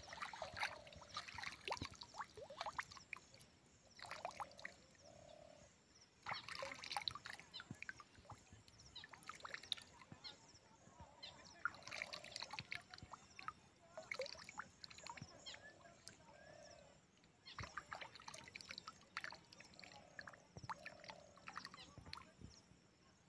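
Pond water splashing and dripping from a cupped hand as it scoops and lifts water, in repeated short bursts every couple of seconds.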